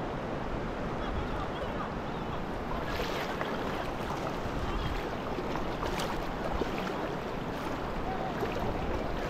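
Steady rush of flowing water, with a couple of brief sharper sounds about three and six seconds in.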